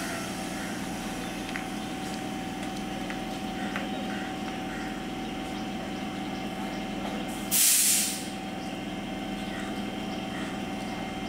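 A standing electric multiple-unit (EMU) local train humming steadily with a level whine from its electrical equipment. About seven and a half seconds in, a loud, sharp hiss of compressed air is let out from the train's air system and lasts under a second.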